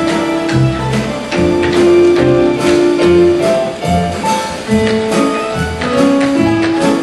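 Instrumental band music with sustained melody notes over a moving bass line, with many short sharp clicks on top.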